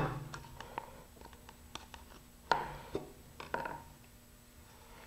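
Wooden stir stick scraping and tapping on a fiberglass tube and a plastic cup while epoxy is spread inside the tube, with light clicks throughout. A sharper knock comes about two and a half seconds in, followed by a few more clicks.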